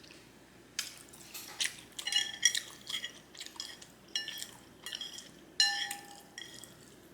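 Eating utensils clinking and scraping against a dish while picking up noodles. There is a scattered run of sharp clinks, several of which ring briefly.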